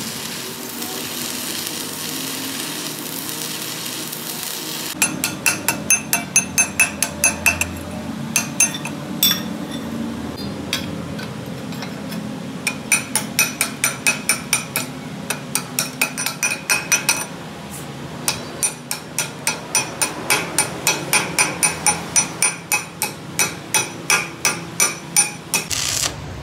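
Arc welding hissing and crackling for about the first five seconds, then a hammer striking the steel axle housing in three quick runs of ringing metallic blows, about three a second, with short pauses between the runs.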